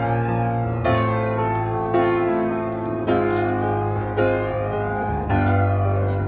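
Background music: a keyboard playing chords, a new chord struck about once a second.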